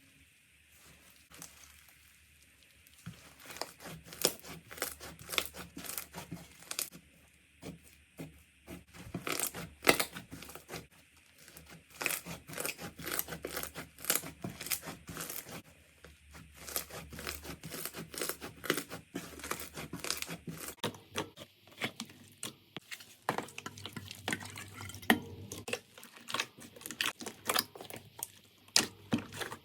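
Slime being squished and stretched by hand, giving dense, irregular crackling and popping clicks that start about three seconds in.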